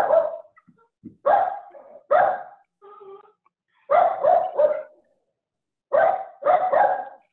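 Dogs barking at each other over a video call's audio, in short groups of two or three barks with pauses between them. There is a fainter call about three seconds in.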